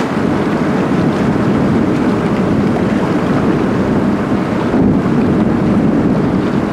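Steady wind buffeting the microphone, over the rush of water churned along the side of a ship under way.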